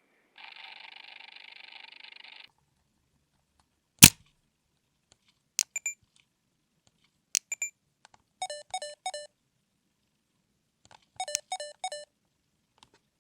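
Sony DCR-PC115E MiniDV camcorder operating: a short buzzy motor whirr, then one sharp loud click, a few small clicks, and two quick runs of three or four of its electronic beeps.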